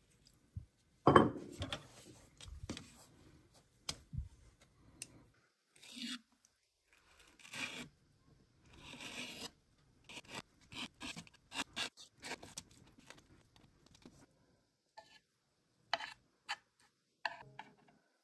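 Intermittent handling noises: a sharp knock about a second in, then scraping, rubbing and a run of small clicks, with two sharper clicks near the end.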